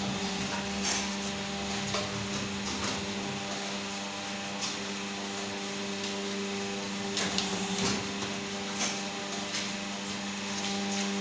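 Leaf plate making press machines running with a steady electric hum, with scattered knocks and clicks from the presses and from leaf sheets being handled.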